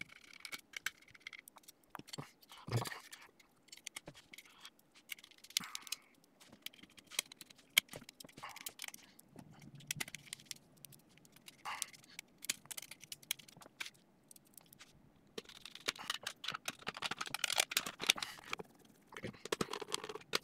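Small screwdriver working the screws of a metal drive bracket, with scattered light clicks, scrapes and the handling of small computer parts.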